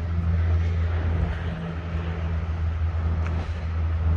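A vehicle engine running steadily with a low, even hum, over a background of outdoor noise.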